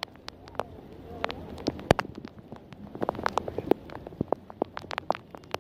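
Heavy rain: a steady hiss with many irregular sharp taps of individual drops striking.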